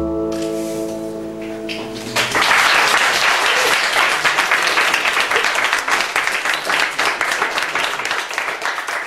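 The last chord of an acoustic guitar song rings out for about two seconds. Then audience applause starts and goes on, slowly dying down.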